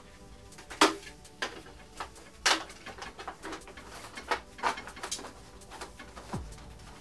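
Hard plastic parts of a NERF Hail-Fire blaster being handled and fitted together: a series of separate clicks and clatters, the loudest about a second in.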